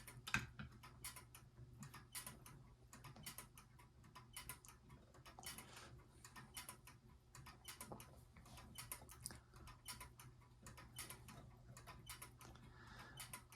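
Faint, irregular light clicking and ticking from a vintage battery-powered swinging kinetic desk toy, its stiff moving parts in need of oil. A low steady hum sits underneath.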